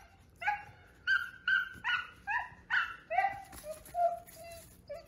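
Pet dog barking over and over, sharp high barks about two a second, turning to lower, softer barks after about three seconds.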